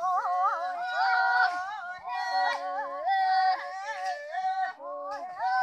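Several women's voices singing together, high held notes that slide up and down between pitches, with short breaths between phrases about two seconds in and near the end.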